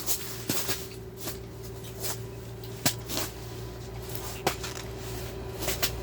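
Scattered light clicks and knocks of small gear being handled, a sharper tap near the middle, over a steady low hum.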